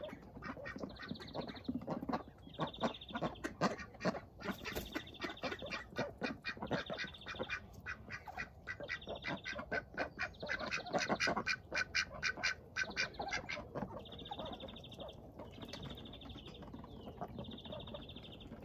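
Domestic ducks, Runner ducks among them, quacking and dabbling their bills in a tub of water, a quick run of short clicky calls and splashes. The runs are busiest a few seconds in and again around the middle. A short high trill repeats every second or two throughout.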